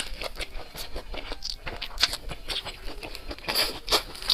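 Close-miked eating sounds: chewing with a quick, irregular run of crisp crunches and wet mouth clicks.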